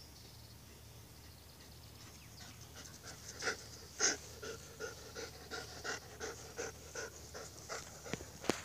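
Dog panting hard, out of breath from running, about three pants a second, starting about three seconds in. A sharp click near the end.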